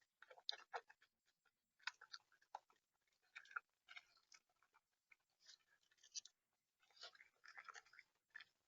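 Bird pecking and cracking seed on a feeder: irregular runs of small clicks and taps with short gaps between them.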